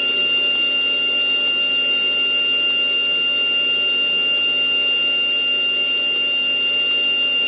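GMN high-speed grinding spindle, rated around 90,000 rpm, running steadily at speed: a constant high-pitched whine with several steady tones over an airy hiss.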